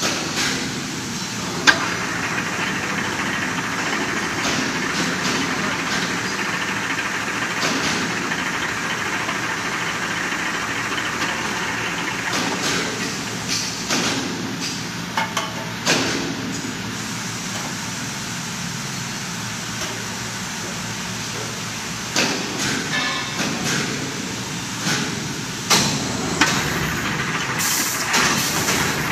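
Automatic square-can seaming machine running, its four-roller seaming head sealing tinplate cans. A steady machine hum, with a sharp knock near the start and bursts of clanking and knocking every few seconds as cans are fed and seamed.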